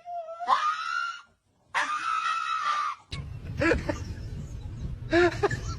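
Two long, high-pitched wailing cries, the first rising in pitch and then held, the second held steady. These are followed by shorter pitched vocal calls over a noisier background.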